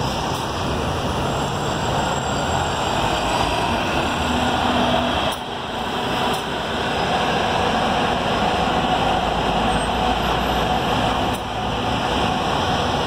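Diesel engines of double-decker buses running as they pull away, with a steady mid-pitched whine over continuous traffic noise.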